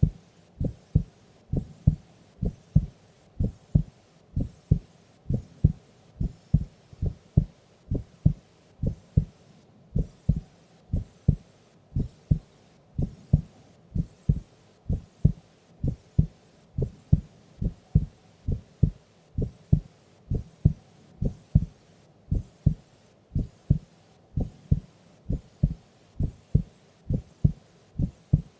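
A sleeping woman's heartbeat: a steady, slow lub-dub of paired low thumps, about one beat a second, the slow resting rhythm of sleep.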